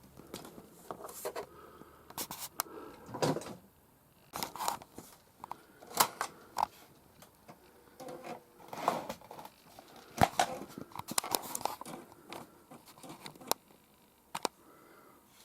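Amiga floppy disk drive trying to boot a disk: irregular clicks of the read head stepping, broken by short grinding rasps as it seeks and reads.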